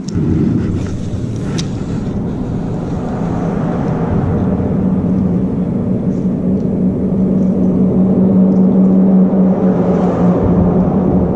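An engine running steadily: a low rumble with an even hum that begins abruptly and slowly grows louder.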